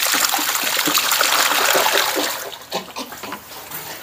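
Water pouring and splashing, which stops about two and a half seconds in, followed by a few light knocks.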